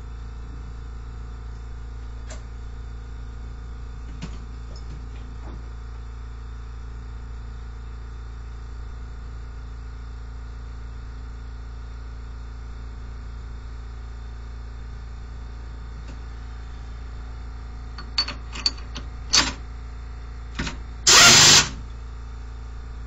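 Steady machine hum in a workshop, with a few light clicks and knocks of tooling being handled on a mill, then a short, loud, hissing burst about two seconds before the end.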